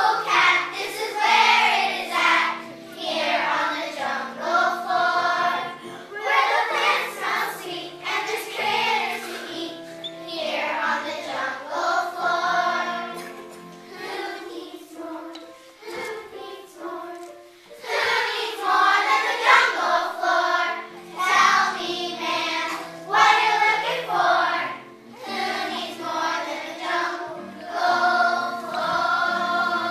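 Children's choir singing a song with instrumental accompaniment, in phrases with a short pause about halfway through.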